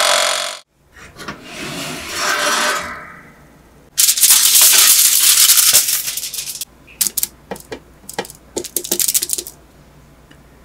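Dense crinkling and rustling for about two and a half seconds, then a run of light, sharp clicks and clatters.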